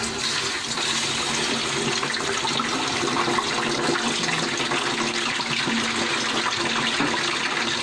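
Whole chicken deep-frying in a pot of hot oil, a steady, dense sizzle with fine crackling, the chicken freshly lowered in over low heat.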